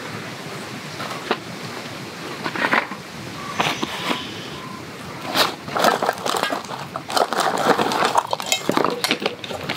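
Camp gear being handled: scattered knocks and clinks of metal cookware, then a busier run of clattering and rustling in the second half as items in a plastic crate are rummaged through.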